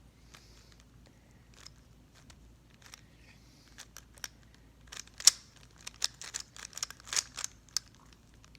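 Rubik's cube being turned by hand: scattered plastic clicks of its layers, then a quick run of louder clicks from about five seconds in.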